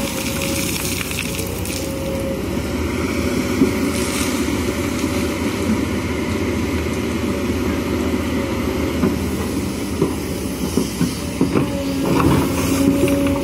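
Kobelco SK210HD hydraulic excavator working under load, its diesel engine running steadily while the bucket digs gravel. A pitched whine is heard at the start and again near the end as the bucket digs, with stones knocking and clattering in the last few seconds.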